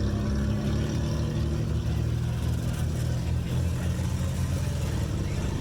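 Off-road vehicle's engine running with a low, steady note that shifts slightly in pitch.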